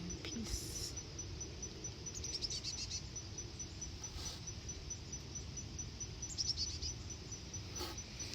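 Outdoor nature ambience: a bird gives two short flurries of rapid high chirps, about two seconds in and again near six and a half seconds, over a steady high insect trill pulsing evenly throughout.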